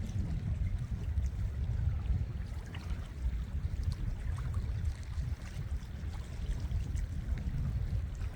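Seaside ambience recorded on a phone: wind rumbling and buffeting on the microphone, with faint splashing and trickling of sea water.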